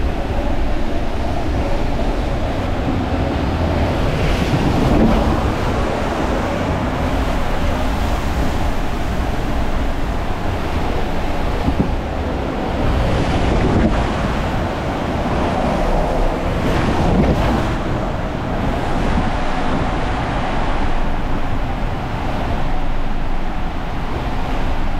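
Steady rush of water and an inflatable tube sliding down a water coaster flume, heard from the rider's seat, with wind buffeting the microphone.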